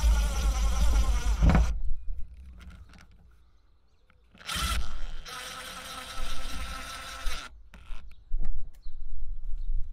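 Cordless drill running in two runs, one stopping about two seconds in and another from about four and a half to seven and a half seconds, as solar panel brackets are fixed to a van's metal roof. A few short knocks follow near the end.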